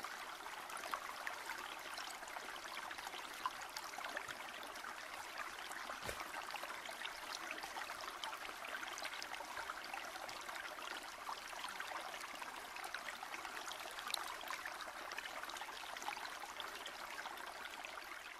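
Steady running water: a small stream trickling, with many small splashes.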